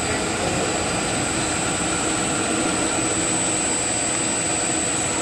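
Special-purpose CNC machine with four spindle heads cutting a submersible pump capsule while coolant sprays over the work: steady machining noise with a thin, steady high-pitched whine.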